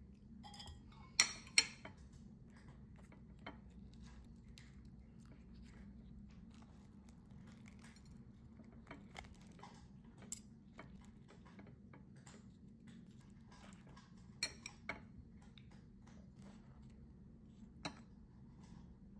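Metal chopsticks and a spoon clinking and scraping against a glass plate while pan-fried buns are pulled apart. Scattered light clicks with a brief ring, the loudest a pair about a second in and another pair a little past the middle, over a faint low hum.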